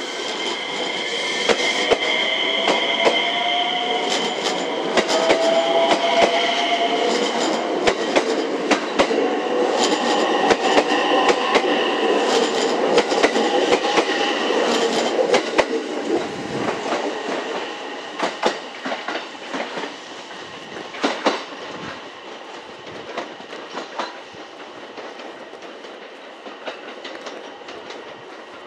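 JR West 227 series electric train pulling away: its motors whine and climb in pitch as it gains speed, and the wheels click steadily over the rail joints. The sound fades as the train leaves after about fifteen seconds.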